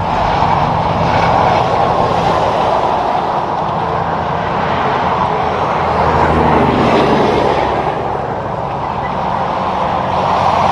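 Highway traffic passing: tractor-trailers and pickups going by at speed, a steady rush of tyre noise over the low hum of diesel engines. It swells about a second in and again about six to seven seconds in as vehicles pass close.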